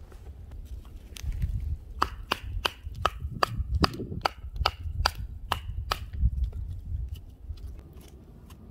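Short lengths of firewood being split by hand. There is a run of about a dozen sharp knocks, roughly three a second, that stops about six seconds in.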